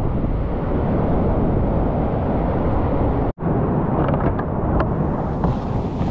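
Steady loud rush of a whitewater river pouring over granite, with a deep rumble underneath. It breaks off for an instant a little past halfway, and after that a few faint clicks sit on top of the rush.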